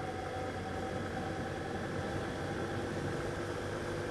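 Honda CG 125 motorcycle's single-cylinder four-stroke engine running at a steady cruising speed, with an even rush of wind and road noise.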